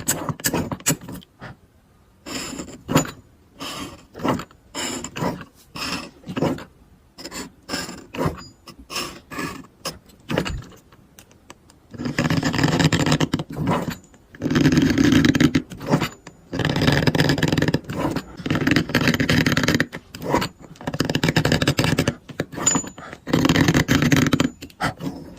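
Repeated short scraping strokes, then from about halfway longer stretches of continuous scraping with brief pauses.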